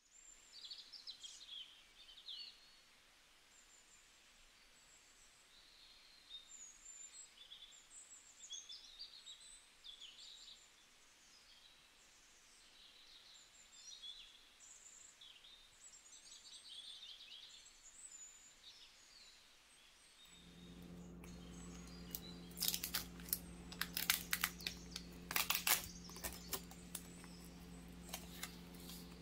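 Small birds chirping and twittering for about twenty seconds. Then, over a steady low hum, the plastic film is peeled off a tray of soft tofu with sharp crinkling and crackling.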